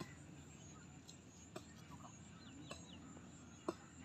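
Quiet outdoor ambience: faint bird calls and a steady high insect buzz, with three short sharp clicks in the second half, the last one the loudest.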